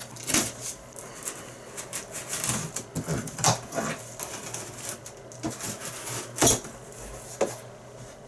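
A knife slitting the packing tape on a cardboard shipping box, heard as a run of short scrapes and cracks of tape and cardboard. The box flaps are pulled open near the end, with the loudest crack about six and a half seconds in.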